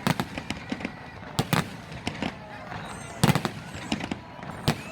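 Fireworks bursting overhead: a rapid, irregular series of sharp bangs and crackles, loudest in a cluster about three seconds in.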